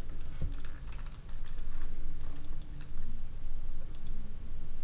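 Light, irregular clicking of a computer mouse and keyboard: a dozen or so separate clicks at uneven spacing.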